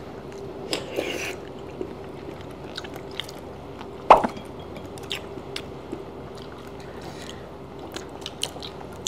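Close-up chewing and wet mouth sounds of eating soft, braised abalone, with small scattered clicks of utensils and one sharper click about four seconds in. A faint steady hum runs underneath.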